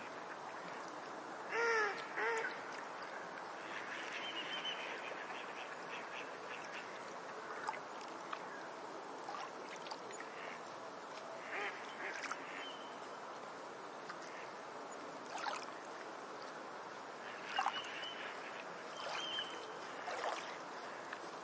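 Lakeside bird calls over a steady background hiss: two short calls about two seconds in, then scattered short, high chirps and brief calls through the rest.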